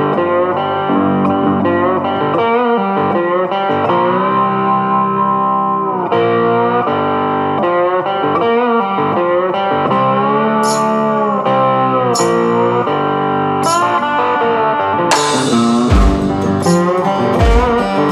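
Guitar-led background music, with held notes that bend in pitch. Drums come in during the last few seconds with cymbal hits and heavy beats.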